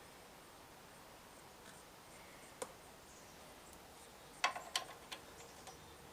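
A few small, sharp clicks over a low background: one about two and a half seconds in, then a quick cluster of louder clicks and knocks about four and a half seconds in, as tools or small metal parts are handled.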